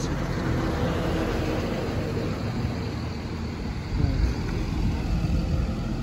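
Road traffic: a steady low rumble of motor vehicles running nearby.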